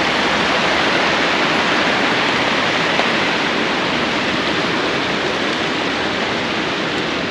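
Fast-flowing floodwater rushing steadily.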